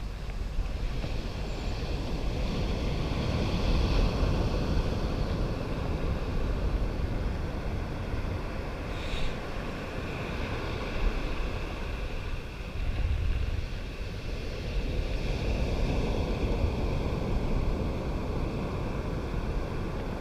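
Wind buffeting the microphone over the steady wash of surf, swelling and easing over several seconds, with one short sharp sound about nine seconds in.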